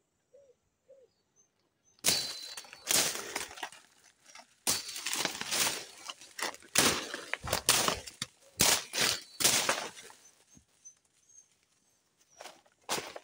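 Footsteps crunching and rustling through dry leaf litter and brushing past undergrowth, irregular and loud from about two seconds in. Before that it is nearly quiet, with three faint short calls.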